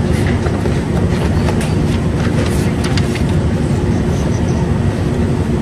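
A steady low rumble with a faint constant hum, and a few light clicks scattered through it.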